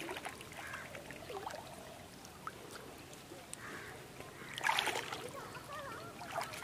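Water splashing and dripping as a gill net is hauled by hand out of shallow water, with one louder splash about two-thirds of the way in.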